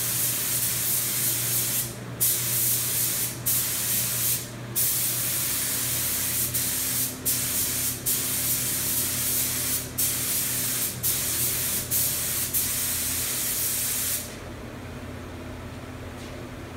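Compressed-air spray gun hissing as paint is sprayed onto a motorcycle frame, in long passes broken by brief trigger releases about a dozen times. It stops about 14 seconds in.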